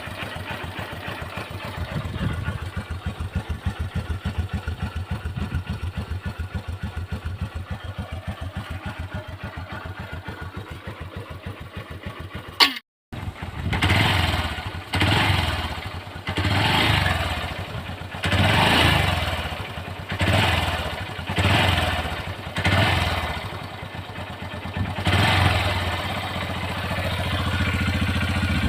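Honda Livo's 110 cc single-cylinder carbureted four-stroke engine with stock exhaust and no catalytic converter, idling steadily, with a click and a brief cut about halfway. It is then blipped up and down about eight times and held at higher revs near the end.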